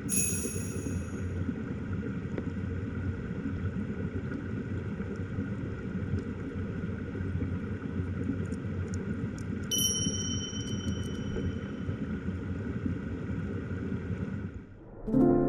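Steady low rushing of mountain-stream water, with two brief high pings, one at the start and one about ten seconds in. It fades out near the end.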